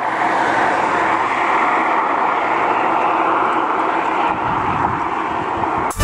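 Steady rush of road traffic: vehicles going by close at hand, with tyre and engine noise blending into one even roar that eases slightly near the end.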